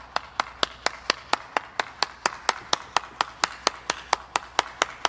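One person clapping hands in a steady, even rhythm of about four to five claps a second.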